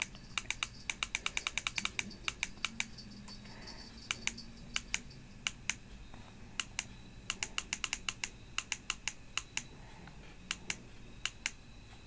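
Rapid plastic clicking of a Baofeng UV-82 handheld radio's keypad buttons, pressed over and over in quick runs of about eight clicks a second, stepping through the receive CTCSS tone values. The clicks are densest at the start, thin out, and come in another run in the second half.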